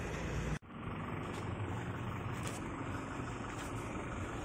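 Steady bus engine and road noise, interrupted by a sudden break about half a second in, then running on evenly.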